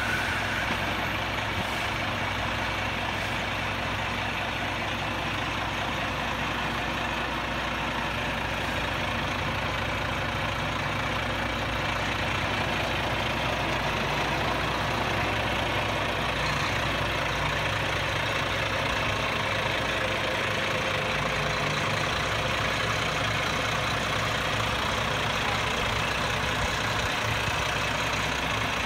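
Diesel engine of a Renault Premium tractor unit running steadily at low revs as the truck creeps forward, towing a bulk tanker trailer.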